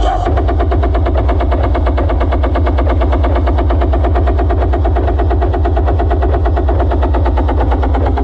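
Large PA sound system playing a loud, deep bass sound that pulses rapidly and evenly, with a strong low rumble underneath.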